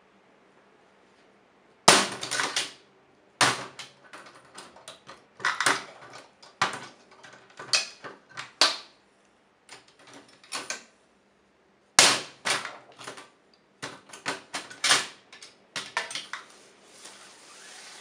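A hammer striking an Olivetti Lettera 25 portable typewriter: a series of sharp metallic bangs and rattles starting about two seconds in, with a short lull midway. A softer rustle follows near the end.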